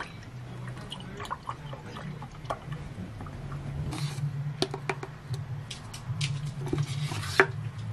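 Milk poured into a glass mug at the start, then clicks, taps and rustles of a plastic protein-powder tub being handled and opened, with a sharp click near the end the loudest. A steady low hum runs underneath.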